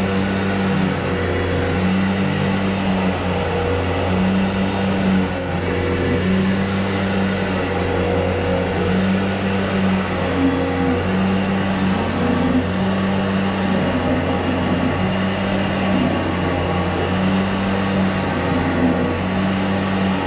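Motor of a drain-cleaning machine running steadily, a low hum with an upper tone that swells and fades about every second or two.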